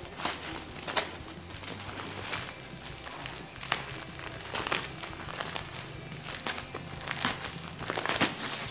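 A taped plastic courier mailer package crinkling and rustling in irregular bursts as it is handled and turned over, over steady background music.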